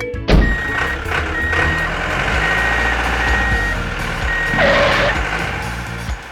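Truck reversing alarm beeping five times, a steady high beep about once a second, over a low engine rumble. There is a thump just at the start and a short noisy burst near the end.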